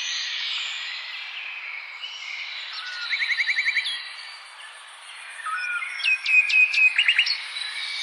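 A chorus of songbirds chirping and whistling over a faint hiss. A quick trill of about seven notes comes a little after three seconds in, and a run of loud, sharp chirps follows between six and seven seconds.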